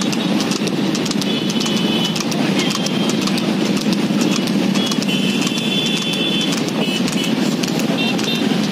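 Motorcycles running alongside a water buffalo galloping with a cart: a steady engine and road noise, with the buffalo's hoofbeats and the cart's clatter. Short high-pitched tones sound several times.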